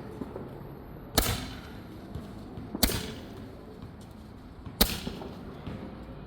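Three sharp firework shots, each a sudden pop that trails off briefly, coming a little under two seconds apart.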